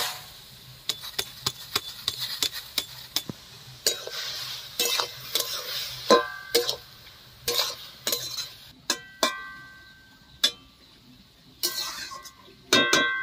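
Metal spatula stirring drumstick flowers in a steel kadai of simmering water: a run of sharp clinks, knocks and scrapes against the pan, with a few strikes that leave the metal ringing briefly, about nine seconds in and again near the end.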